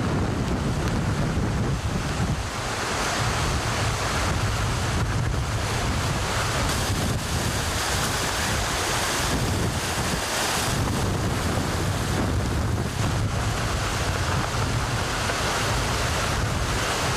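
Heavy surf and hurricane-force wind, with the wind buffeting the microphone in a low, rumbling rush over the noise of the breaking waves.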